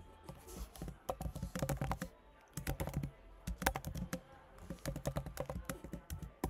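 Computer keyboard being typed on: quick, irregular runs of keystroke clicks, with a short pause about two seconds in.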